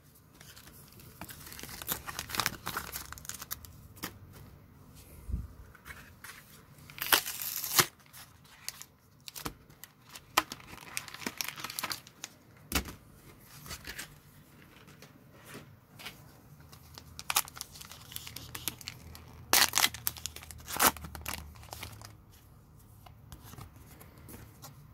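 Pokémon card packaging being torn open by hand: a clear plastic blister shell crinkling and wrappers ripping, with a few sharp, louder rips about a third of the way in and again past the middle.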